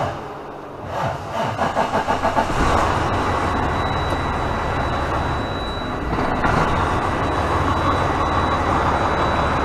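Freightliner truck's diesel engine cranking on the starter with quick rhythmic pulses, catching about two and a half seconds in, then running at a steady idle. A steady high-pitched tone sounds throughout.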